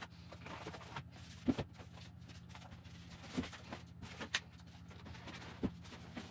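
Handling noise from a foam model airplane and its foam packaging box: several separate light knocks and clicks as parts are lifted out and set down, over a faint steady hum.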